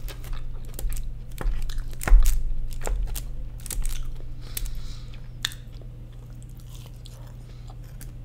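Close-miked chewing and biting of cheese-loaded crinkle fries, with sharp wet clicks and smacks, busiest in the first half and quieter after.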